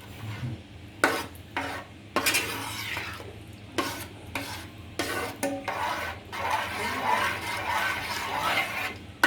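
A spoon stirring thick jackfruit payasam with the milk just added, scraping through it and knocking against the pot about every half second, then a few seconds of continuous scraping near the end.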